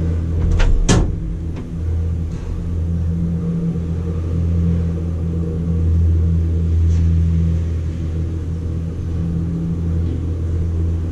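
Gondola lift cabin running along its cable, heard from inside the cabin: a steady low rumble and hum. A couple of sharp knocks come about a second in, as the cabin moves out of the station.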